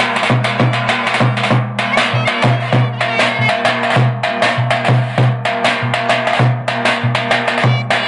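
Turkish davul bass drum beaten in a brisk dance rhythm, deep mallet booms alternating with sharp stick strokes, with a clarinet playing a folk melody over it.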